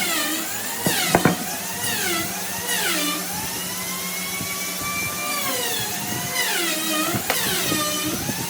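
Handheld electric power tool motor working wood. Its pitch drops and recovers again and again as it is pressed into the work and eased off, with a few sharp knocks about a second in and again near the end.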